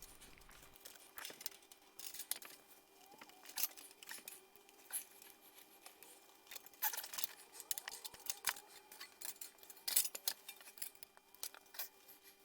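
Sheet metal being worked by hand around a steel tube: scattered light metallic clicks, ticks and scrapes, some with a short ring, over a faint steady hum.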